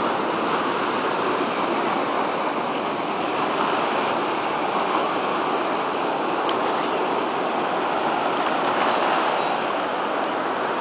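Ocean surf washing steadily over rocks at the foot of low cliffs, a continuous rushing of breaking and receding water.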